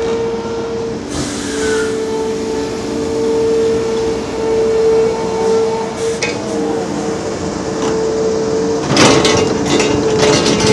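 Liebherr R 930 crawler excavator running, with a steady high whine over the engine. About nine seconds in comes a burst of clattering knocks.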